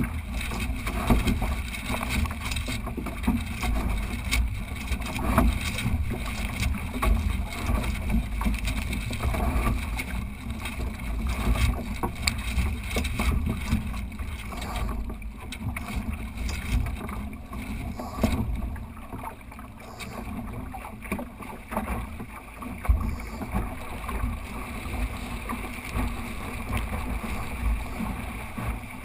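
Wind buffeting the microphone and water rushing and splashing along the hull of a small sailing dinghy under way, with scattered sharp knocks.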